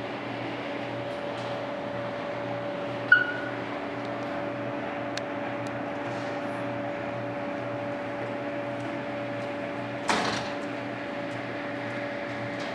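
Steady mechanical hum made of several low, level tones. A short high beep comes about three seconds in, and a single knock about ten seconds in.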